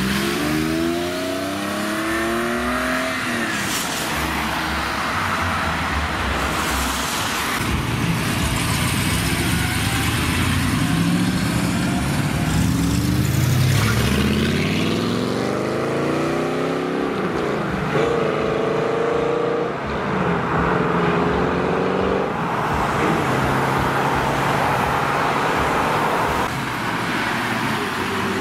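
A string of cars pulling away one after another, their engines rising in pitch through the gears with tyre and road noise between. First a Porsche 911 convertible's flat-six pulls off, its tyres splashing through standing water. About halfway, a classic Corvette Sting Ray's V8 runs up through the revs.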